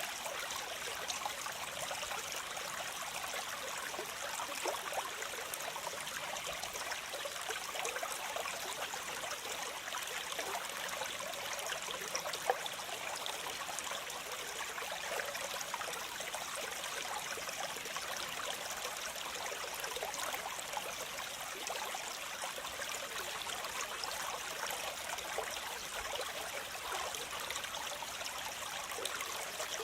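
Waterfall: water cascading and splashing in a steady, hissing rush with many small splashes through it and little deep rumble.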